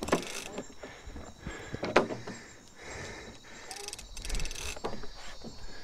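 Handling noise from a fishing rod and multiplier reel being worked: scattered clicks, knocks and rustles, with one sharp knock about two seconds in. A faint steady high insect chorus runs behind.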